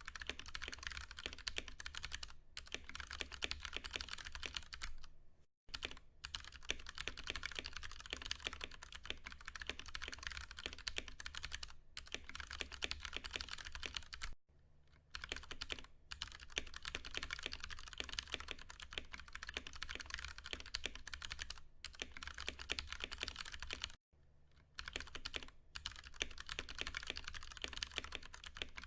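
Continuous typing on a Ducky One 2 Mini mechanical keyboard with Cherry MX Brown switches: a fast, steady stream of key clicks broken by a few brief pauses.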